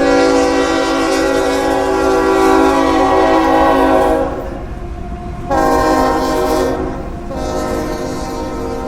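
Freight locomotive air horn sounding over the low rumble of the train: one long blast of about four seconds, then after a gap of about a second another blast that runs on, dipping a little near the end.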